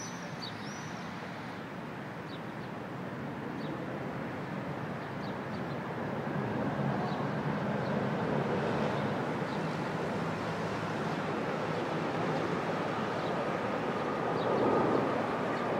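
A formation of military jet aircraft passing overhead, heard as a steady rushing engine rumble. It grows louder over the first half and swells to its loudest near the end.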